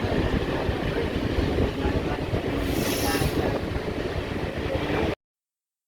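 ICF passenger coach running on the track: a steady rumble and rattle of wheels and bogies, with a brief hiss about three seconds in. The sound cuts off suddenly near the end.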